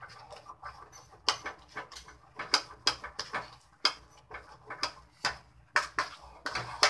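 Steel spoon clicking and scraping against a stainless steel pan while stirring a thick water chestnut flour halwa, in quick, uneven strokes several times a second.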